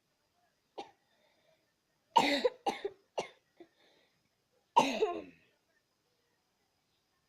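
A cartoon character coughing: one short cough, then a fit of three quick coughs, and one more loud cough about five seconds in.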